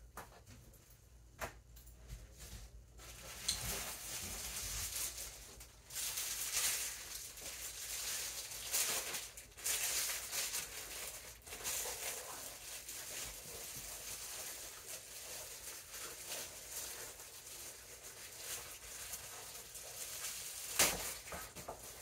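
Clear plastic packaging crinkling and rustling in the hands as a costume boot is unwrapped. It is faint at first, then busier from about three and a half seconds in, with irregular sharp crackles.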